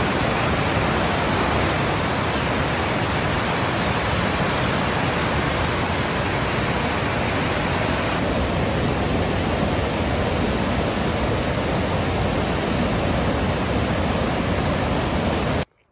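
Waterfall pouring steadily, a dense, even rush of falling water that cuts off suddenly near the end.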